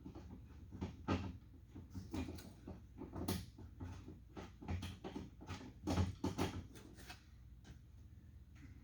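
Irregular clicks and knocks of a wrench working the door handle's 10 mm mounting nuts inside a pickup's rear door, with a few duller thumps. They thin out near the end.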